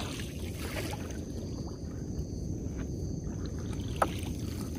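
A trammel net being hauled by hand into a small boat, with the wet net rustling against the hull over a steady low rumble. One sharp knock comes about four seconds in.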